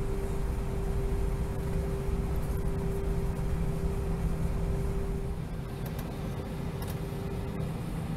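Airliner cabin noise while taxiing: a steady low engine rumble and hiss with a steady hum that fades about five seconds in as the rumble eases slightly.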